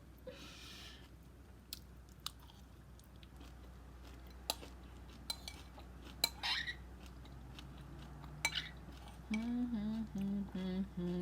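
Close-up chewing of a mouthful of crunchy cereal, with scattered sharp clicks and a few short crunches. About nine seconds in, a voice starts humming a tune.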